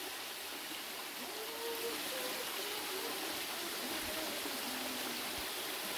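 A small stream running over rocks, a steady rushing of water, with faint distant voices under it.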